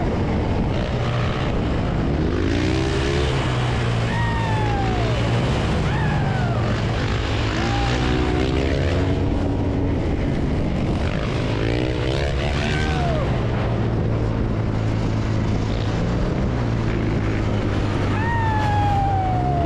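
Several motorcycle engines running together: a steady low drone with repeated revs that rise and fall again every second or two.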